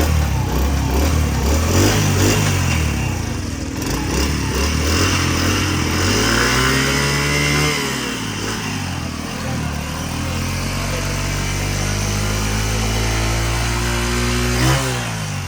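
Honda CD70's single-cylinder four-stroke engine running and being revved. The revs rise and fall several times: a climb about six seconds in ends in a sharp drop, then a long steady stretch, and a short blip of throttle near the end.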